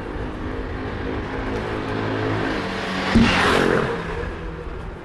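Street traffic: an engine running steadily, and a vehicle passing close by, swelling to its loudest about three seconds in with a short knock and then fading away.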